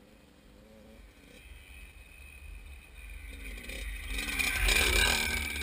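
A kid's dirt bike approaching along a rocky trail, its engine growing steadily louder and peaking as it passes close by about five seconds in, then starting to fade.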